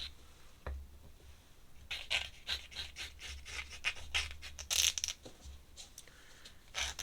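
Ink drawing strokes scratching on paper: a quick run of short rasping strokes from about two seconds in to about five, with a few single ticks around it, over a steady low hum.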